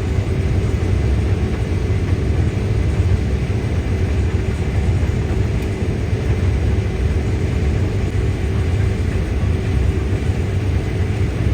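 Combine harvester running while harvesting corn: a steady, unbroken low engine drone with a constant machinery hum over it.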